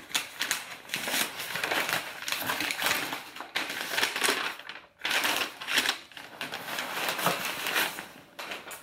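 Tissue paper being unfolded and pulled aside, rustling and crinkling in irregular bursts, with a brief pause about five seconds in.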